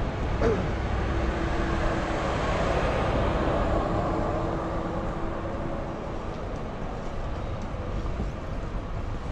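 A vehicle passing on a city street: a steady rushing noise with a held tone through the middle, easing off a little in the second half.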